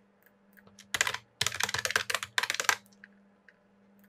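Typing on a computer keyboard: a short run of quick keystrokes about a second in, then a longer rapid run that stops nearly three seconds in.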